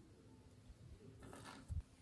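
Faint tabletop handling sounds: a light rustle, then a single soft low knock near the end as objects are set down and picked up by hand.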